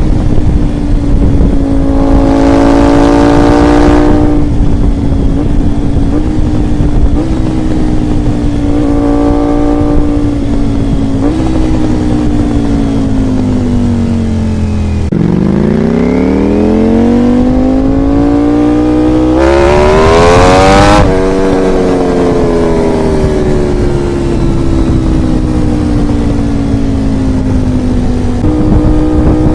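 Ducati Panigale V4 R race bike's V4 engine on the move: the revs mostly ease down with several sudden short jumps up, as on downshifts. About halfway the note dips deep and then climbs, and about two-thirds through it revs hard in a rising sweep before falling away again, with two brief loud rushes of noise.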